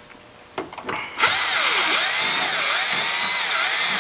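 A cordless drill/driver starts up about a second in, after a couple of clicks, and runs steadily while driving a screw through a mahogany covering board. Its pitch sags and recovers several times as the screw bites and loads the motor.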